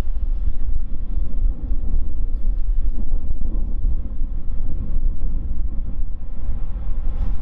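Boeing 787-9's GEnx turbofan engines running at low taxi power: a steady low rumble, mixed with wind buffeting the microphone.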